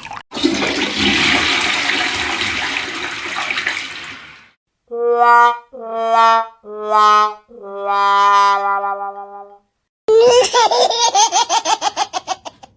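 Three comedy sound effects in a row: a toilet flush rushing for about four seconds, then a sad trombone 'wah-wah-wah-waaah' of three short notes and a longer, lower last one, then, from about ten seconds in, a wobbling sound breaking into a fast run of pulses that fades out.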